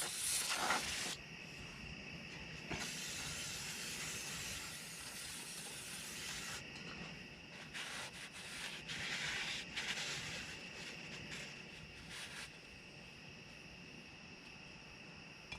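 Spray can hissing in several bursts, the longest about four seconds, as the inside of a rear brake drum is sprayed out.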